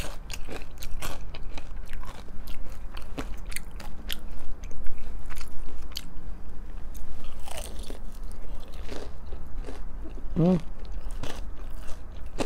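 Close-miked biting and chewing of a crispy fried breaded chicken finger: a run of small crisp crunches and wet chewing, with a short hum from the eater's voice about ten seconds in.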